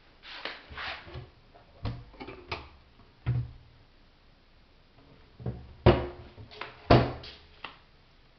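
Irregular knocks and bumps, about a dozen in all, unevenly spaced; the two sharpest come about six and seven seconds in.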